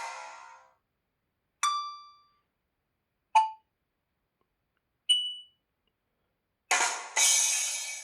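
Tecno Pop 2F smartphone notification tones played one after another: a ringing ding that fades out, then two short pings, then a longer two-part chime near the end.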